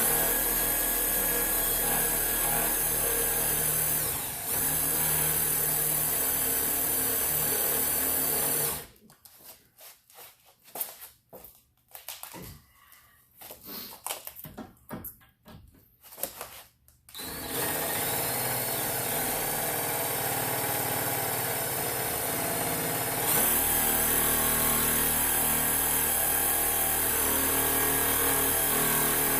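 Power drill running in forward with a Speed Out screw-extractor bit, its cutting end boring into a stripped screw head. It runs steadily for about nine seconds, stops for about eight seconds with a few light clicks and knocks, then runs again and gets louder about six seconds later.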